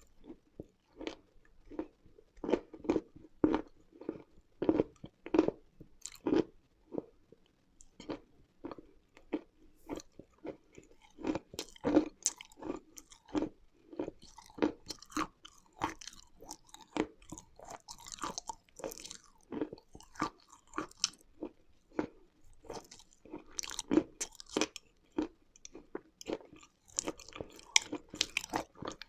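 Close-miked person biting and chewing dry, crunchy eating chalk or clay, a steady run of crisp crunches about one to two a second, with brighter, crackly bites in the second half.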